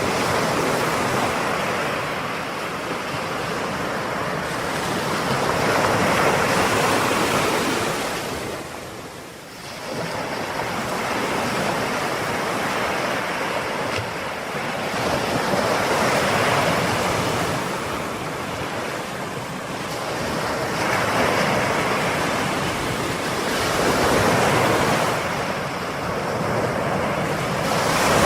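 Ocean waves breaking and washing ashore, the surf swelling and easing every several seconds, with a brief lull about a third of the way in.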